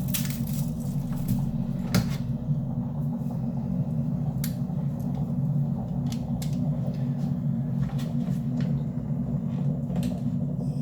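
A steady low rumble with scattered light clicks and knocks every second or two, the loudest about two seconds in.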